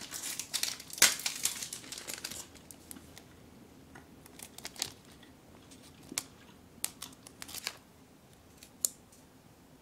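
Plastic snack wrappers crinkling as they are picked up and handled: a dense flurry of crinkles over the first two and a half seconds, loudest about a second in, then scattered single crinkles.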